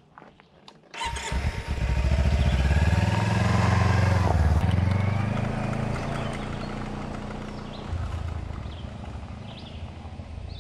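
Kawasaki Versys-X 300's parallel-twin engine starting about a second in and running. The bike then pulls away, and the engine sound fades steadily as it rides off into the distance.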